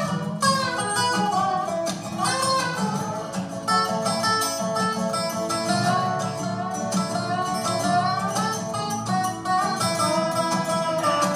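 Three dobros, resonator guitars played lap-style with a slide, playing an instrumental piece together, with notes gliding up and down between pitches.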